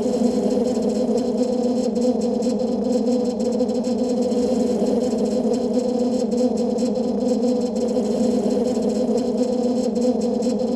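A steady, unchanging electronic drone, with a low hum and a fainter high hiss and no beat or melody.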